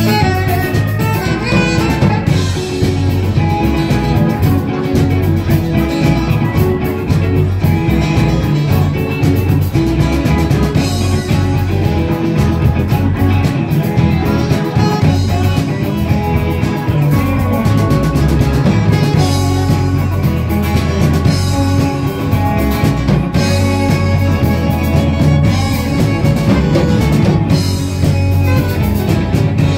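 Live band playing a rock-blues number on electric guitars, bass guitar, drum kit and keyboard.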